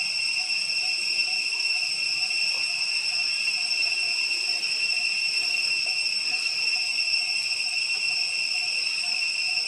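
Steady, high-pitched insect drone: one unbroken shrill tone that holds level throughout.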